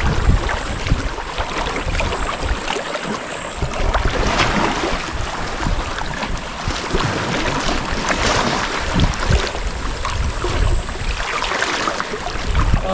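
Wind rumbling on the microphone over the wash of shallow seawater, the water swelling louder a couple of times.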